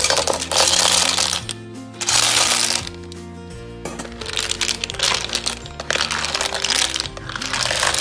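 Clams in their shells clattering and sizzling as a metal spatula stirs them in a hot wok of coconut-milk gravy, in several loud bursts over steady background music.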